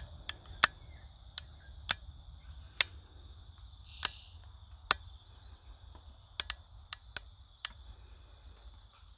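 Footsteps crunching over the debris-covered floor of a derelict railcar, heard as scattered sharp cracks and clicks at irregular intervals, about a dozen in all. A faint steady high-pitched tone and a low rumble sit underneath.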